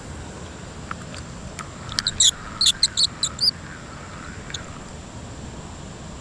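A small bird gives a quick series of about seven short, high chirps about two seconds in, over a steady rush of water from the spillway.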